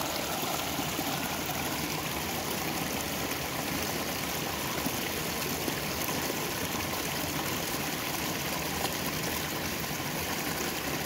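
Shallow stream running steadily, an even rushing noise.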